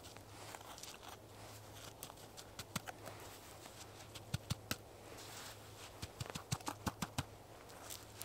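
Footsteps in deep snow: boots crunching and pushing through powder, with irregular sharp crunches that come thicker in the second half.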